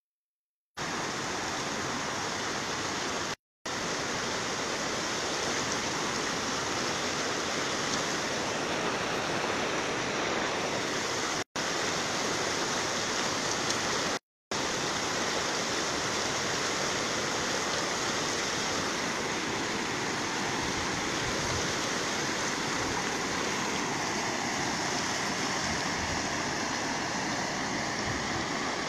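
Floodwater of a river in spate rushing past in a steady, even roar of turbulent water. The sound is cut by a few brief silent gaps.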